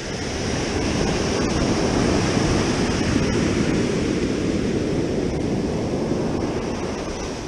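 Ocean surf breaking and washing up a sand beach: a steady rushing that builds over the first second and eases off near the end.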